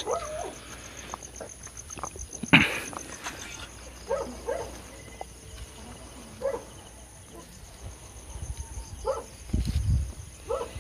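Crickets and other night insects trilling steadily, a high continuous chirring, with a few faint short rustles and knocks, the sharpest about two and a half seconds in.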